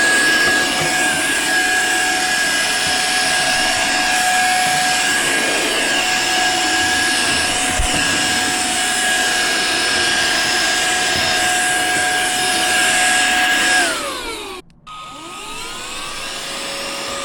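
Cordless electric air duster and vacuum's high-speed fan motor running with a steady whine as it vacuums. About fourteen seconds in it spins down and cuts out briefly, then spins back up to a steady, lower-pitched whine.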